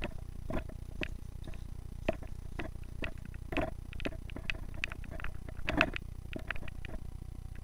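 Irregular footsteps with short knocks and scuffs, about two a second and some heavier than others, over a steady low hum.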